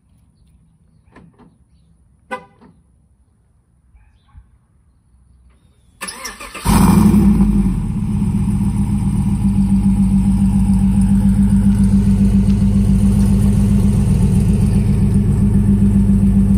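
A Chevrolet Silverado 5.3-litre V8 with long-tube stainless headers and a racing muffler, cold-starting after a tune. Some seconds of near quiet with a couple of faint clicks come first. About six seconds in there is a brief crank, then the engine catches with a loud flare and settles into a steady idle through the dual exhaust tips.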